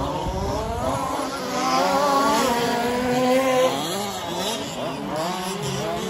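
Several 4WD off-road RC race cars running at once, their motors whining in several overlapping pitches that keep rising and falling as the drivers work the throttle through the corners.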